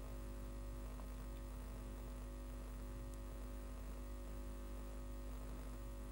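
Steady electrical mains hum with a faint hiss underneath, unchanging throughout; no splashes or knocks stand out.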